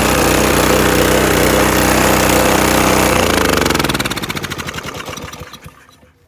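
Honda GC190 single-cylinder four-stroke engine running steadily, then winding down: about three and a half seconds in its pitch falls and the firing beats spread out until it stops near the end.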